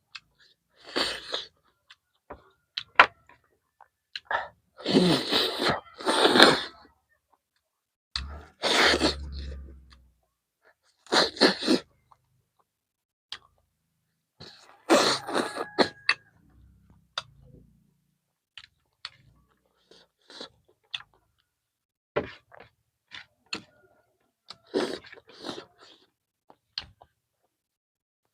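Close-miked eating sounds from a person eating chicken and vegetables: chewing, biting and smacking in short separate bursts with quiet gaps between them. The loudest bursts come about four to six seconds in.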